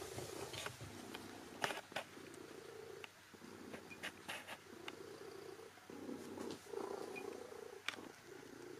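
A domestic cat purring in slow in-and-out cycles, about one a second, with a few faint clicks.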